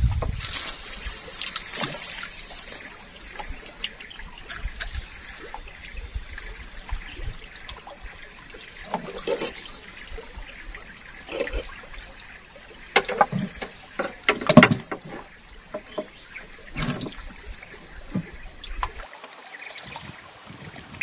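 River water trickling and lapping, with scattered short knocks and clicks that are loudest about thirteen to fifteen seconds in.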